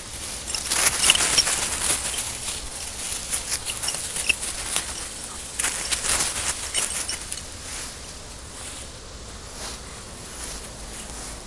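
Irregular rustling and scuffling noise with a few sharp clicks, busiest in the first few seconds and again about six seconds in, then calmer.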